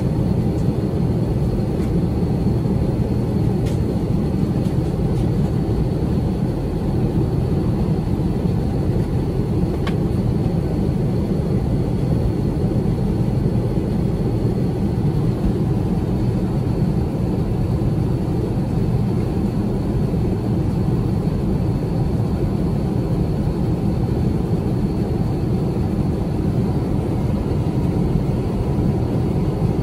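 Airbus A350-900 cabin noise during the climb after takeoff, heard from a window seat: a steady, even rumble of Rolls-Royce Trent XWB engine and airflow noise.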